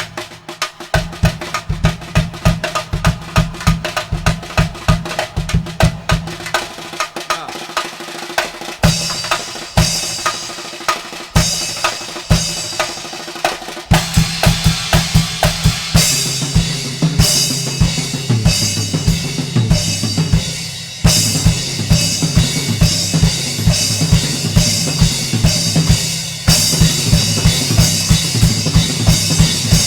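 Drum kit solo: fast, dense strokes on toms, snare and bass drum, with cymbals coming in brightly about halfway and the playing growing louder in steps toward the end.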